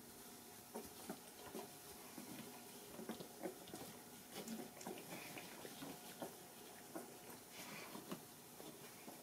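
Faint, scattered squeaks and grunts from a litter of newborn English setter puppies, with small shuffling and nuzzling sounds as they squirm against each other and their mother.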